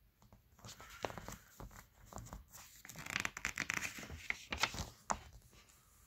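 Catalog pages being turned by hand: paper rustling and crinkling with many small crackles, loudest from about three to five seconds in.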